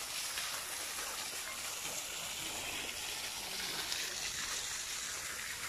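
Fountain spray falling into its basin: a steady hiss of splashing water.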